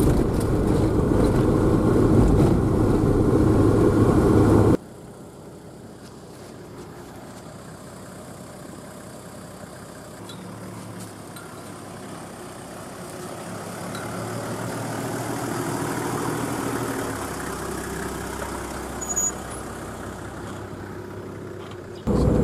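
Four-wheel drive on a dirt track: loud engine and road rumble inside the cabin, then after a sudden cut about five seconds in, the same vehicle heard from outside, its engine running quieter and swelling as it drives up and past; it jumps back to loud cabin rumble near the end.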